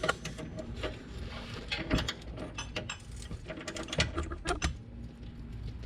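Ratchet wrench clicking in short, irregular runs of strokes as a suspension bolt is turned, with a few sharper metal knocks of tools.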